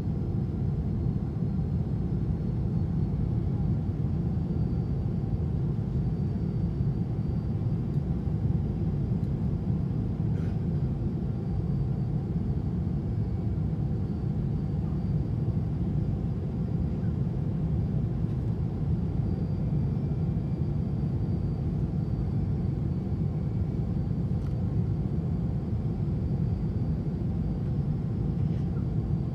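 Steady low rumble of engine and airflow noise inside a Boeing 777-200's cabin during the descent to land, with a faint thin high tone above it.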